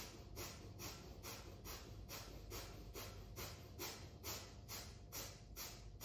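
Breath of fire from Kundalini yoga: rapid, rhythmic breathing through the nose, about three breaths a second, each a short, sharp rush of air.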